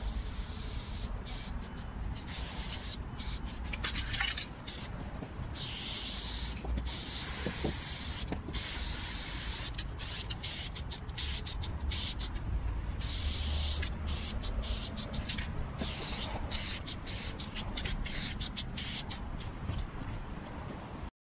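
Aerosol spray paint cans hissing as graffiti is sprayed onto a wall, in many short bursts and a few longer ones of a second or two, stopping and starting throughout.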